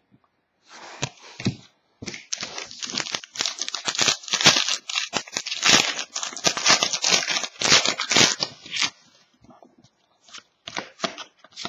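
Foil trading-card pack being torn open and its wrapper crinkled, a dense run of rapid tearing and rustling for several seconds that thins out near the end.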